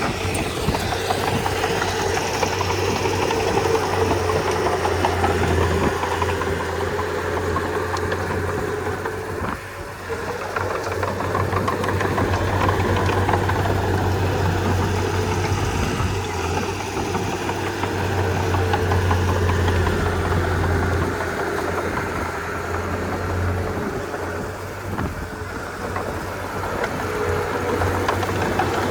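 Komatsu D31P bulldozer's diesel engine running steadily, with a brief dip in loudness about ten seconds in.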